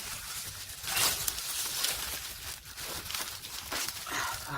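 Soil and a small grow bag rustling and scraping in uneven bursts as turmeric roots are dug out by hand.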